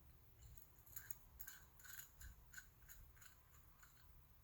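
Faint, quick, irregular light metal clicks and scrapes from small parts and a hand tool being handled during the assembly of a fuel-injection warm-up regulator.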